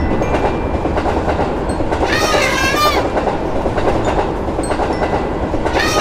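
Passing train with a steady rumble and wheel clatter. An elephant trumpets about two seconds in, then again near the end, each call a high sweep that dips and rises.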